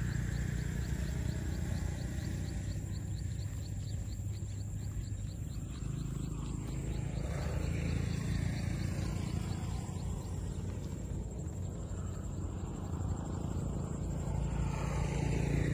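Wind rumbling on the microphone, a steady low noise with no engine note in it. During the first few seconds a fast run of faint, high ticks sits above it.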